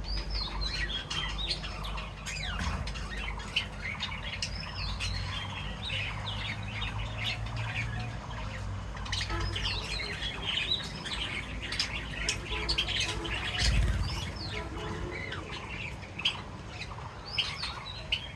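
A group of caged pet birds chirping and squeaking continuously in quick, overlapping calls, over a steady low rumble that swells briefly about three-quarters of the way through.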